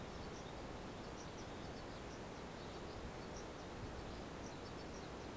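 Faint, steady outdoor ambience: a low rumble and hiss of wind on the microphone, with scattered faint bird chirps.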